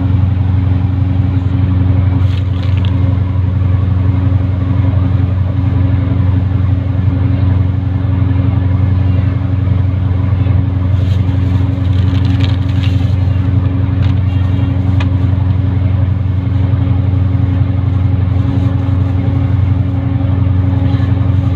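A boat's engine running steadily at a constant speed: a loud, even low drone that does not change, with a few faint clicks and rattles now and then.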